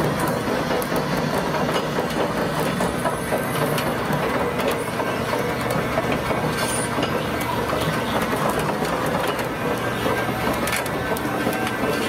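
Toy RC excavator's small electric motors and gearboxes whirring steadily as it drives on its tracks and works its boom, with gravel crunching and clattering under it and a few sharp clacks of stones near the end.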